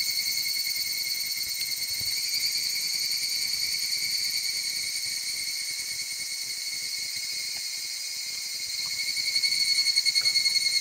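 Steady, high-pitched chorus of insects trilling in a fast, even pulse; it grows louder near the end.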